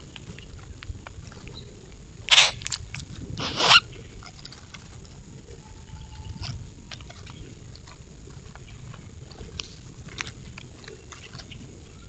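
A flock of grackles feeding at a small wooden table feeder: scattered light pecking clicks, with two loud, brief bursts of bird noise about two and three and a half seconds in.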